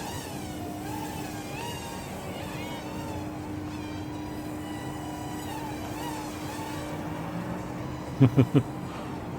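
Hubsan X4 Plus micro quadcopter's motors whining in flight, the pitch rising and falling as the throttle changes. Three short loud blips stand out a little over 8 seconds in.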